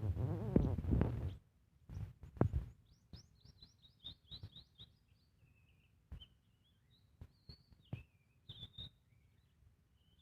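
A small bird chirping. About three seconds in comes a quick run of short, high, downward-sliding chirps, followed by scattered twitters. A louder, lower sound with a wavering pitch fills the first second or so, and there are short knocks throughout.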